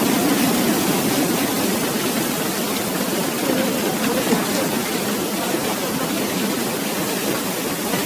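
Steady rushing of a waterfall, an even wash of falling water with no breaks.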